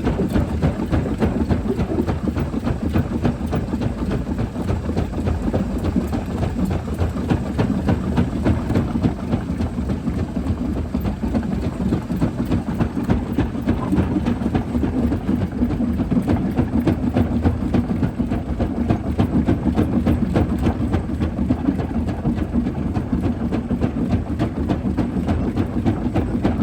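Jaw crusher running steadily, its heavy low rumble mixed with a constant clatter of rock being broken and knocking through the jaws.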